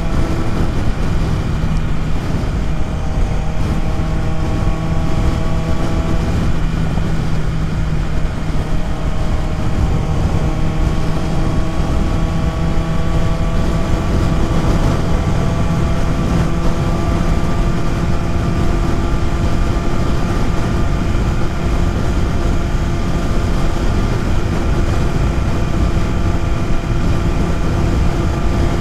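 BMW S1000RR's inline-four engine running at road speed under heavy wind rush on the helmet microphone. The engine note drops about six seconds in, then climbs slowly and steadily through the rest.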